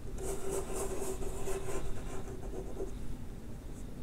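Chalk drawing a long line on a chalkboard: a scratchy stroke with a steady low tone in it, lasting nearly three seconds before it stops.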